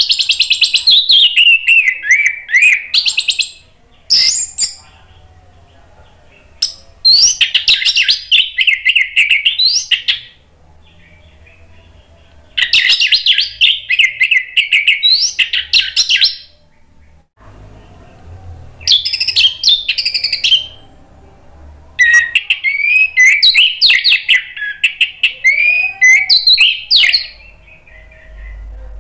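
Orange-headed thrush (anis merah) singing loudly in repeated phrases of rapid, varied notes, about six phrases separated by pauses of a second or more.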